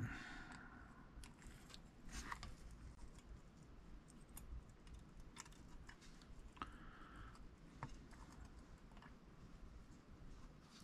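Faint, scattered clicks and light scrapes of small parts being worked into an Abu Garcia CS Pro Rocket baitcasting reel as a piece is fitted back into place.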